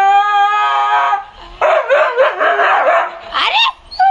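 A dog howling: a long held note that breaks off about a second in, then a rougher, noisier stretch of yelping, and a short rising yelp before another held howl begins near the end.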